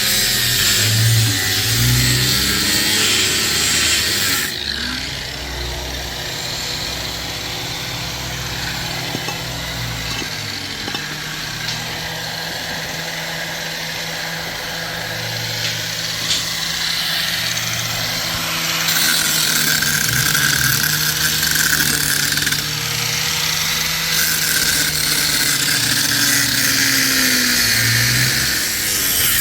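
An engine running steadily, its pitch drifting slowly up and down a little.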